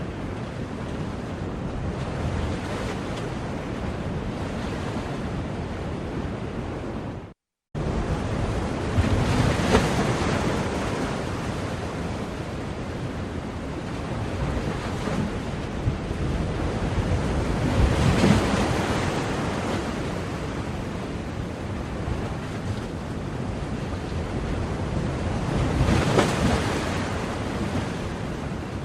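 Ocean surf: a continuous wash of waves, swelling as a wave breaks about every eight seconds, three times. A brief cut to silence comes about seven seconds in.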